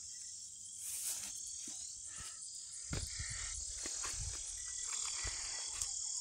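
Steady high-pitched chirring of insects in a summer garden, with leaves rustling and soft low bumps as plants are handled.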